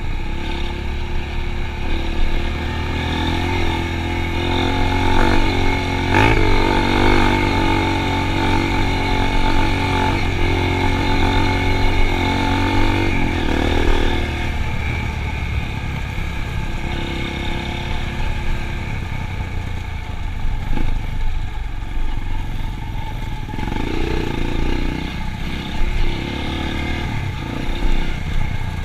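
Motorcycle engine running on the move, its note rising and falling with the throttle. It is stronger and more even for the first half, then rougher and more uneven.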